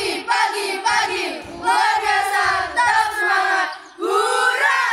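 A troop of girl scouts singing a chanted yell together in unison, loud, in short phrases with brief breaks about one and a half and four seconds in.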